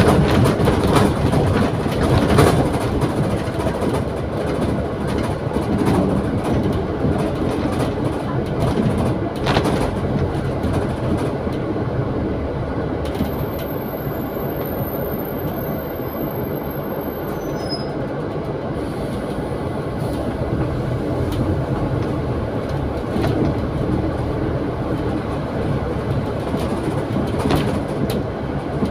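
Steady running noise inside the upper deck of a double-decker bus driving on a wet road: engine, tyre noise and body rattle, with a few short knocks.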